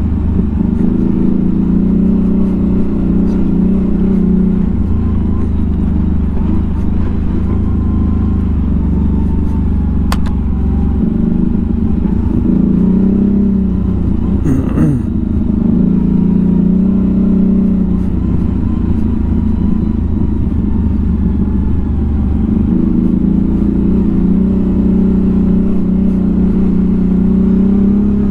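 A 1000 cc ATV engine running at low, even speed, its note dropping and picking back up a few times as the throttle changes, with a quick falling sweep about halfway through.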